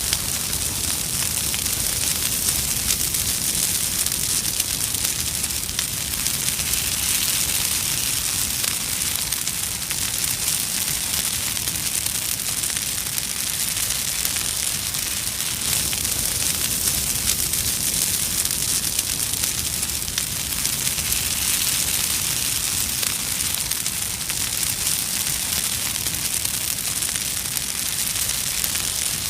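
Fireball sound effect: burning flames crackling and hissing densely and evenly, over a low rumble.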